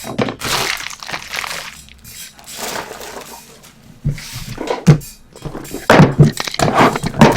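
Trading-card packaging being handled and torn open: crinkling and tearing with several sharp knocks in the second half.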